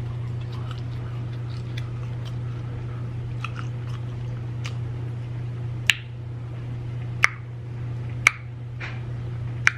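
Close-miked mouth chewing fried food, with wet, soft mouth clicks and four sharp smacks in the second half, over a steady low hum.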